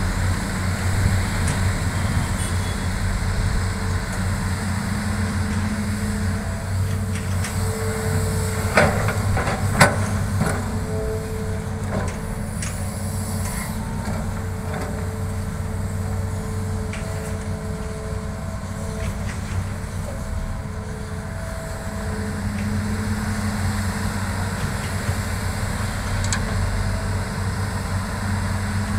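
Hitachi hydraulic excavator working: the diesel engine runs under load with a steady low drone, and a hydraulic whine comes and goes as the boom digs, swings and dumps soil. A few sharp knocks stand out about nine to ten seconds in.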